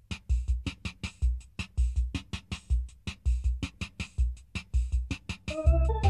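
Background music: a fast electronic drum beat, with sustained keyboard chords and bass coming in near the end.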